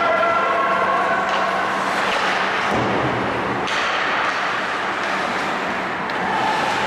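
Ice hockey game in a rink: a steady wash of skates and arena noise over a low hum, with a few sharp clicks and knocks and faint distant calls from players.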